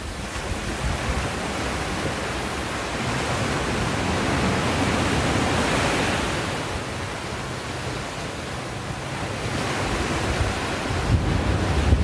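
Ocean surf washing up a sandy beach, one wave's wash swelling and fading around the middle, with wind rumbling on the microphone.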